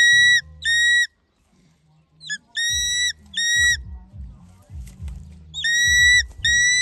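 Young eagle calling: high, clear whistled screams, each held about half a second and given in pairs, three pairs in all, with a couple of short rising notes before the middle pair.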